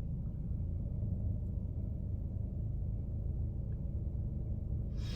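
Steady low rumble, with a brief hiss about five seconds in.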